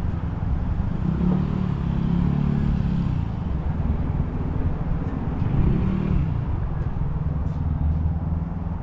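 Road traffic: motor vehicles going past over a steady low rumble, with an engine note that swells twice, the second time rising and then falling away.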